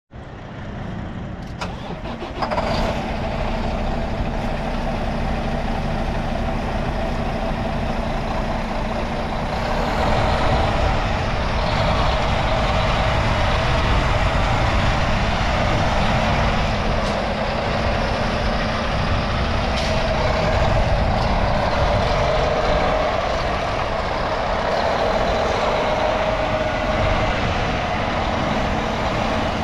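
International WorkStar 7600 quad-axle dump truck's diesel engine running steadily at idle, growing louder about two and a half seconds in.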